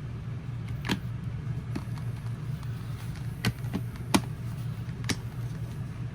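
About six short, sharp clicks and taps of the plastic door switch piece being set into a W204 Mercedes C300 door panel, the loudest about four seconds in, over a steady low hum.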